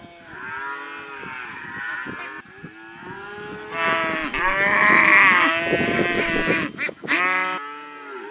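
Several cows mooing, long overlapping calls one after another, the loudest chorus about halfway through.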